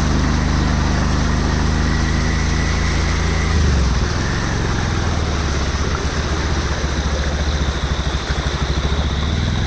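Motorbike engine running while wading through floodwater with its silencer under the water. About four seconds in, the engine note drops and turns into a fast, uneven pulsing.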